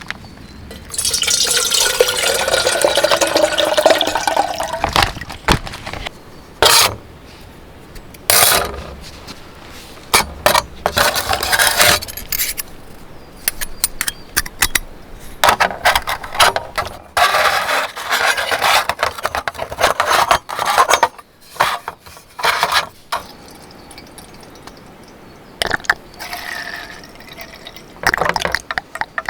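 Liquid poured into a container for about three seconds, the pitch rising as it fills, followed by scattered clinks and scrapes of cookware being handled.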